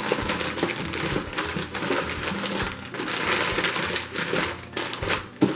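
Plastic snack wrappers crinkling and rustling, with packets knocking against each other and the cardboard box, as hands dig through a box of packaged snacks.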